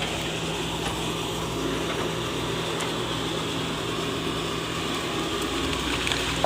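Excavator engine running steadily at an even pitch with a low hum.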